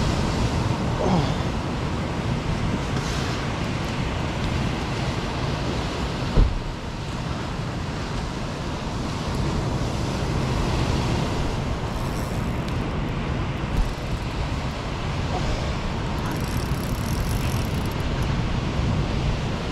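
Steady rumble and hiss of surf breaking on an open beach, with wind noise on the microphone. A single sharp thump about six seconds in.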